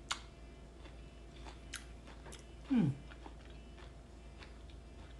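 A person chewing and biting into a crisp, juicy star fruit, with scattered small crunching clicks. About two and three-quarter seconds in there is a short hum from her voice that falls steeply in pitch.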